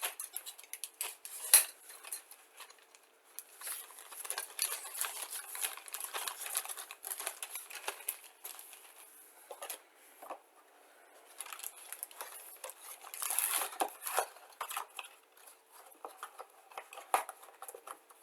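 Small plastic model kit parts, sprues and packaging being handled: scattered light clicks and taps with bursts of rustling, the sharpest click about a second and a half in.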